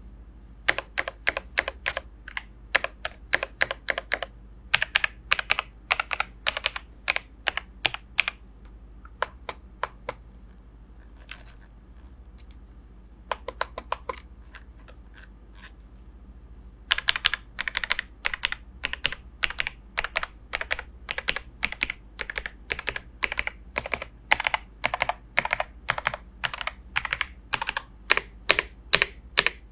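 Ajazz AK820 MAX 75% mechanical keyboard being typed on for a sound test: bursts of keystroke clicks with short pauses, a few scattered single presses in the middle, then fast, steady typing over the last dozen seconds.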